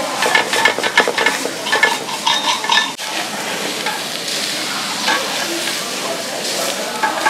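Raw steak sizzling on an extremely hot cooking stone as it is sliced, the meat searing where it touches the stone. In the first three seconds a steel knife and fork scrape and click against the stone.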